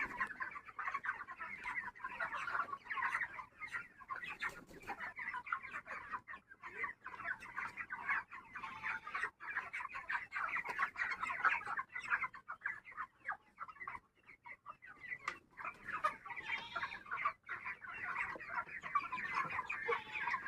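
A large flock of chickens in a poultry house calling all at once, a continuous chatter of many overlapping clucks and calls.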